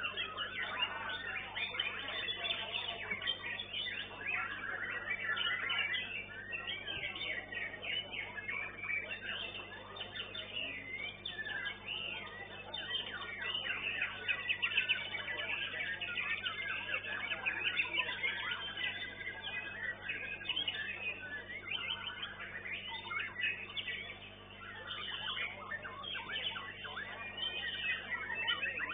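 White-rumped shama (murai batu) singing in a songbird contest: a dense, unbroken stream of rapid whistled and chattering phrases with a brief lull near the end, over a low steady hum.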